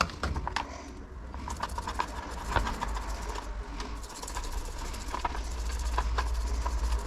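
Greasy bicycle rear-hub parts being cleaned with white spirit: irregular light clicks and scraping of small metal pieces being handled and wiped, over a low rumble.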